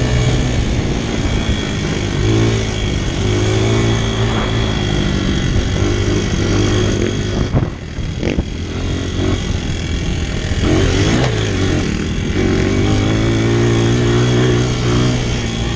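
Four-stroke Honda dirt bike engine heard from on board while riding, the revs rising and falling over and over with the throttle, dropping away briefly about halfway through before picking up again.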